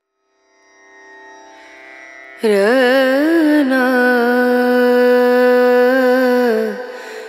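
Background music: a soft drone fades in, then about two seconds in a loud, held melodic line enters with sliding, wavering pitch, sustained until just before the end.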